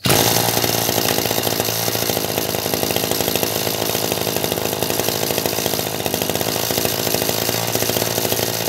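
Maruyama MB260 26cc two-stroke brush-cutter engine catching on the starter pull and running steadily at an even speed.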